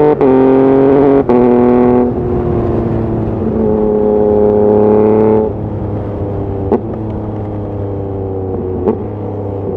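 Yamaha MT-09's inline three-cylinder engine under way, its note broken twice by quick cuts in the first second and a half, then settling at a lower pitch. About five and a half seconds in the throttle closes and the engine drops to a quieter, lower note, with two brief sharp cracks later on.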